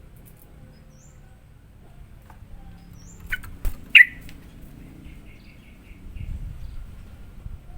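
Yellow-vented bulbul calling: three sharp chirps about three to four seconds in, the last the loudest, then a faint quick chattering run of notes.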